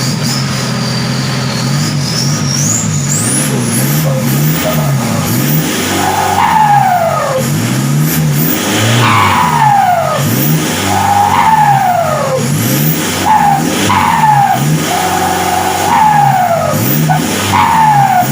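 Vehicle engine revved repeatedly through a 6-inch exhaust tip, its pitch rising and falling about every two seconds from some six seconds in. After each rev a whistle falls away.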